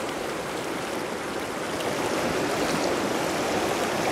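Fast, shallow mountain stream rushing over stones: a steady rush of water that grows a little louder about two seconds in.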